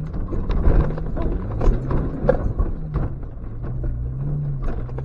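Suzuki X-90's 1.6-litre four-cylinder engine pulling hard up a rough, rutted off-road track, its note wavering up and down, heard from inside the cabin over repeated knocks and bangs as the car jolts over stones and ruts.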